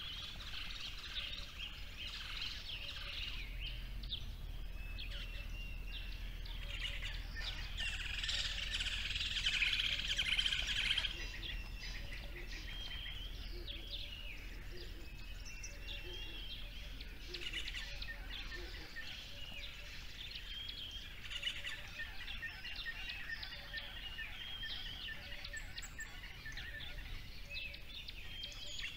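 Many small birds chirping and singing at once in a continuous chorus, thickest and loudest between about eight and eleven seconds in.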